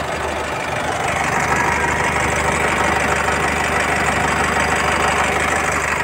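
Honda City i-DTEC's four-cylinder diesel engine idling steadily with the air conditioning switched on. A steady rushing noise grows louder about a second in.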